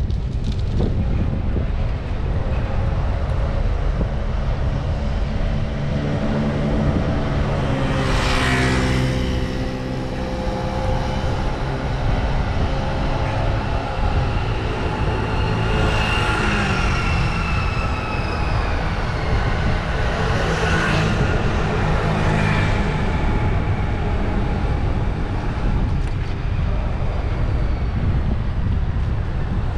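Wind noise on the microphone from riding a bicycle, with a motor vehicle's engine droning in the middle stretch, its pitch shifting a little as it passes.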